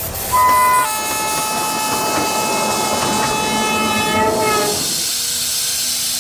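Train horn sounding a chord of several steady tones over the rumble and clatter of a moving train, louder in its first half-second; a lower steady tone takes over about five seconds in.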